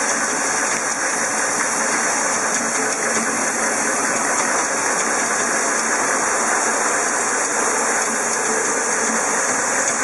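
Screw and washer assembly machine running: a steady, even hiss-like mechanical noise with no distinct knocks or beats.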